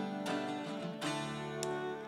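A long-necked plucked string instrument played solo: sustained ringing notes with a few sharp plucked strokes, the strongest about a second in.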